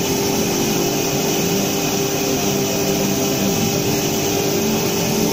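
CNC router spindle running steadily as its bit cuts through a sheet: a constant whine of several held tones over a noisy cutting hiss.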